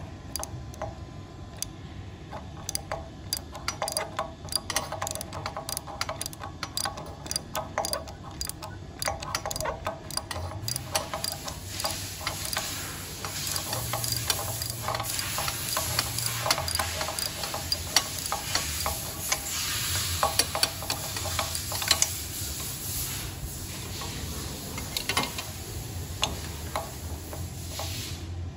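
Hand ratchet wrench clicking in irregular runs as its socket turns out a broken exhaust-manifold stud on a Honda Ape 50 cylinder head, working the stud by a nut welded onto it.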